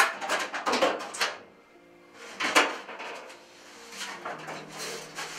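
Plastic back cover of a plasma TV knocking and scraping as it is worked loose and lifted off: a sharp knock at the start, a run of knocks through the first second, and another loud knock about two and a half seconds in, then softer rubbing. Background music plays underneath.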